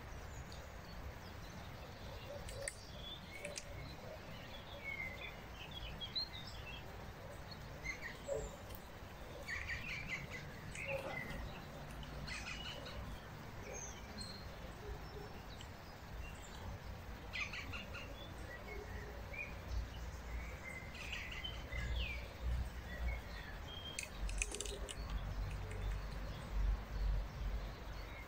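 Songbirds chirping and trilling on and off, several short calls at a time, over a low rumble that grows stronger near the end.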